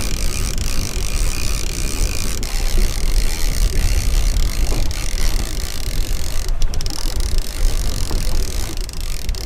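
Wind buffeting the microphone in an irregular low rumble, over a steady hiss from the open sea around a small boat.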